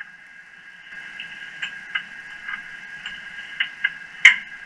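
Light metal clicks and taps as a steel workpiece is handled and reseated in a machine vise: several scattered ticks, then one sharp knock about four seconds in, over a steady high-pitched hum.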